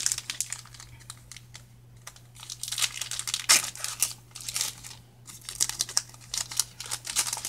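Foil wrapper of a Pokémon trading-card booster pack being torn open and crinkled, in several bursts of crackling rustle with short pauses between; the loudest comes about three and a half seconds in.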